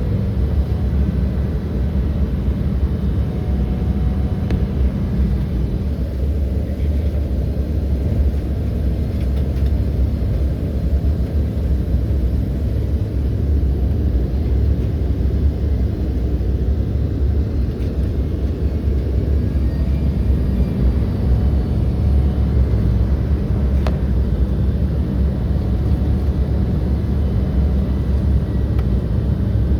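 Steady low rumble inside the cabin of an Embraer 175 airliner, from its engines and the airflow past the fuselage.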